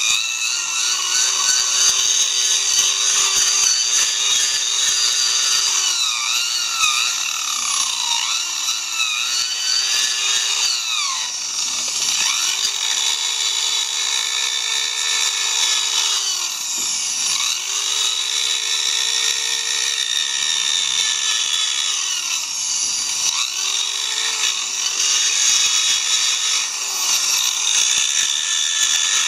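Electric grinder spinning a sponge sanding wheel against a wooden handrail elbow joint, smoothing the inner rounded corner. The motor's whine sags in pitch each time the wheel is pressed into the wood, several times over.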